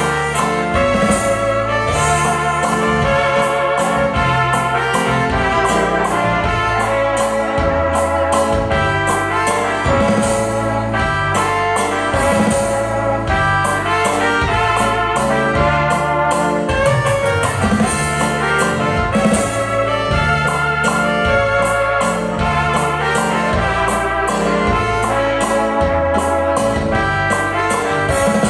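Music with a steady beat, a bass line that steps between notes, and sustained melodic lines above.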